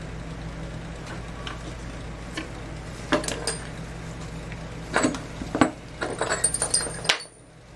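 Small steel hand tools clinking and tapping at a bench vise, with a handful of sharp metallic clicks that ring briefly, most of them bunched in the second half. The sound cuts off suddenly near the end.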